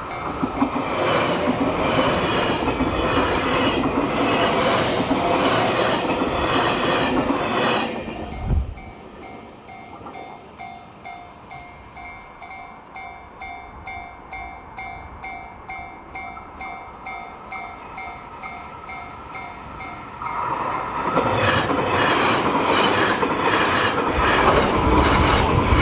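A JR Kyushu 813 series electric train passes close by over a level crossing with a rhythmic clatter of wheels, while the crossing's warning bell pulses steadily. A short low thump comes about eight seconds in, as the train noise drops away. The bell then rings on its own until a second train passes from about 21 seconds in.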